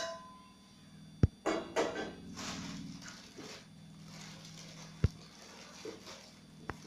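Quiet kitchen handling sounds over a low steady hum: a sharp click about a second in, a stretch of rustling and scraping from about two to three and a half seconds, then another sharp click about five seconds in and a fainter one near the end.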